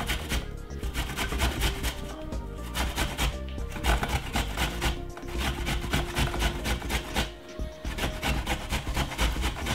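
Fresh ginger root grated on a metal box grater: quick, repeated scraping strokes, with a short break about seven seconds in.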